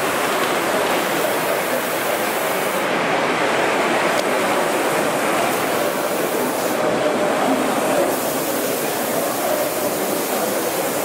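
Steady noisy hubbub of a busy exhibition hall, with a Gauge 1 model train running along the layout track.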